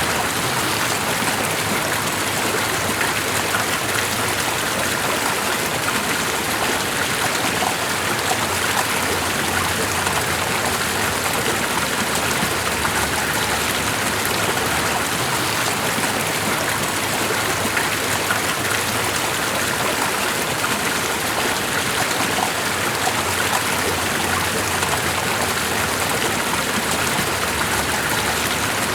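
Steady, even rush of water with a fine patter in it.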